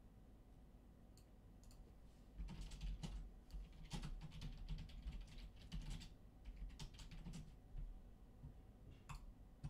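Computer keyboard typing, faint: a few scattered clicks, then a run of quick keystrokes for about five seconds, and a couple of lone clicks near the end.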